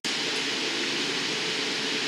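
Steady noise of a hot-glass studio's gas-fired glory hole and furnace burners and ventilation running, with a faint steady hum underneath.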